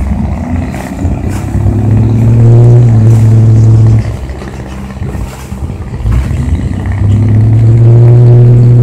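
Diesel engine of a harbour cleaning work boat revving up under load, dropping back about four seconds in, then revving up loudly again near the end.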